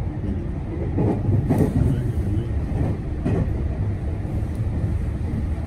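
Passenger train running, heard from inside the carriage: a steady low rumble of wheels on track, with louder rattling clatters about a second and three seconds in.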